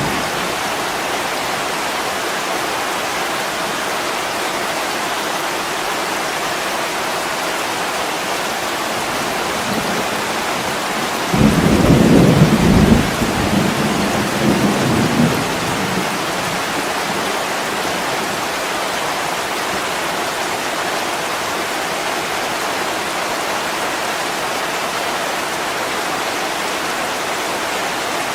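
Steady heavy rain falling. About eleven seconds in, a low roll of thunder rises, is loudest for a second or two, then rumbles off over the next few seconds.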